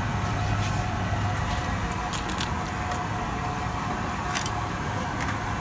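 Steady street noise: a continuous low hum and a constant mid-pitched tone under an even haze, with a few brief clicks and rattles.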